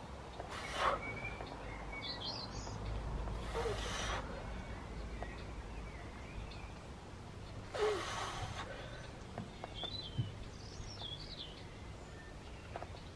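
A weightlifter's forceful exhalations while pressing heavy dumbbells: three short, hissing breaths about half a second, three and a half and eight seconds in. Birds chirp in the background.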